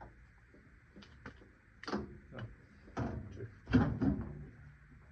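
A handful of irregular knocks and clatters, like parts and tools being handled on a car, the loudest about four seconds in.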